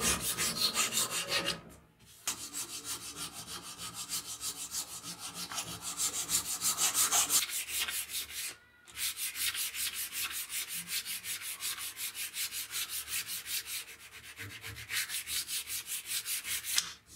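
Hand sanding a wooden cleaver handle with abrasive strip and sandpaper: quick back-and-forth rubbing strokes, about five a second, pausing briefly about two seconds in and again around the middle.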